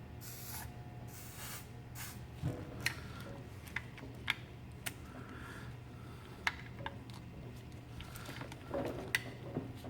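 Scattered light clicks and handling noises of small tools and parts over a steady low electrical hum.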